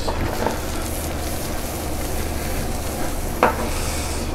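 Asparagus frying in rendered guanciale fat in a pan over a gas flame: a steady sizzle, with a few brief clicks over it.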